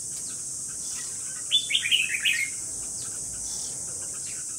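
Caged red-whiskered bulbul giving a short burst of song, a quick run of chirpy notes stepping down in pitch, about a second and a half in. A steady high-pitched hiss runs underneath.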